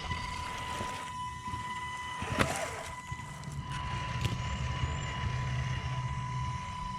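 RC scale crawler running, its electric motor and gearbox giving a steady whine over a low rumble, with a sharp knock about two and a half seconds in and a lighter one a couple of seconds later.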